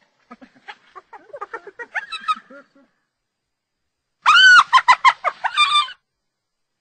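Spotted hyena giggling. A quieter run of short, broken pitched notes, then after a pause a loud burst of rapid, high-pitched cackling notes lasting about a second and a half.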